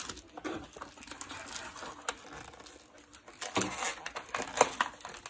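Scattered light clicks and taps with some rustling, a little busier from about three and a half seconds in: small plastic toy kitchen pieces being handled.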